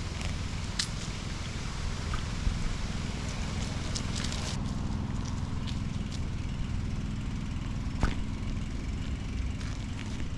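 Bicycle riding along a trail with the action camera mounted on it: a steady rumble of wind and tyre noise, with a few sharp clicks and rattles, the loudest about eight seconds in.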